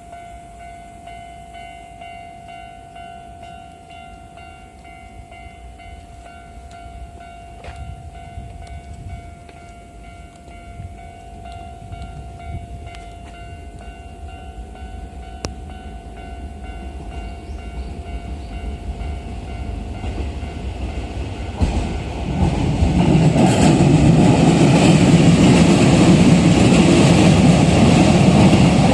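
Japanese level-crossing warning bell ringing steadily while a train's rumble slowly grows. About three quarters of the way through, a Toei 5500-series electric train reaches the crossing and passes loudly, its wheels and motors covering the bell.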